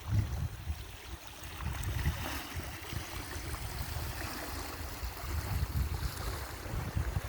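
Wind buffeting the microphone in uneven low rumbling gusts, over the hiss of water lapping at a shore.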